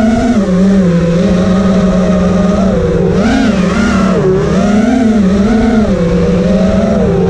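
FPV quadcopter's brushless motors and propellers whining in flight, the pitch rising and falling with the throttle every second or so. The motors are T-Motor F80s on high ESC motor timing, with a lot less oscillation than before though not none.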